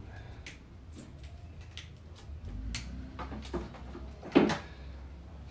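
Metal intake pipe, silicone hose and cone air filter being handled and pushed together during fitting: scattered clicks and light knocks, with one louder knock a little over four seconds in, over a steady low hum.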